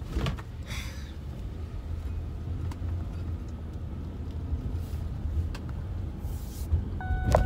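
Car running, heard from inside the cabin: a steady low engine and road rumble. Near the end comes a sharp click, and a steady tone starts.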